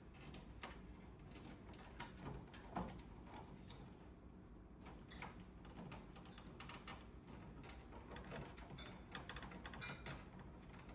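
Faint scattered clicks and light knocks from an air conditioner's indoor-unit parts being handled and fitted back into place, with a slightly louder knock about three seconds in.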